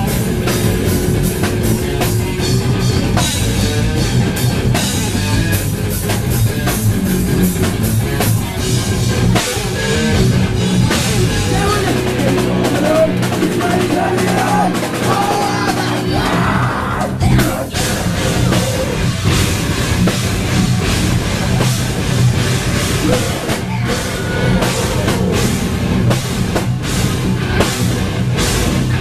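Post-hardcore band playing loud live: guitars, bass and a hard-hit drum kit. About thirteen seconds in the low end drops away for a few seconds, then the full band crashes back in.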